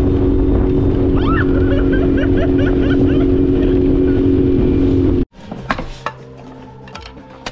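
A 9.9 hp outboard motor runs steadily, driving an inflatable dinghy at speed with water rushing past the hull, and a voice is heard briefly over it. About five seconds in it cuts off abruptly, followed by a few sharp wooden cracks of hatchets splitting kindling.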